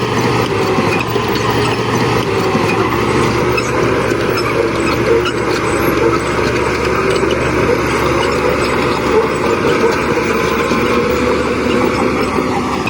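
Diesel engines of heavy earthmoving machinery running steadily and loud under load, with no pause or change.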